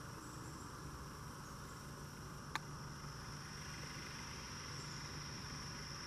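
Steady high-pitched insect chorus in summer foliage, over a low steady hum, with one faint click about two and a half seconds in.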